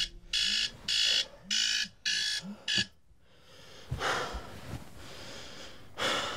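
Electronic alarm beeping in regular pulses, about two a second, then cut off suddenly about three seconds in. A short silence and fainter noise follow.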